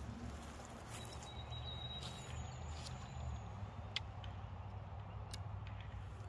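Outdoor ambience with a steady low rumble and a few faint high whistles, broken by small sharp clicks from handling an arrow at a longbow, the sharpest about four seconds in.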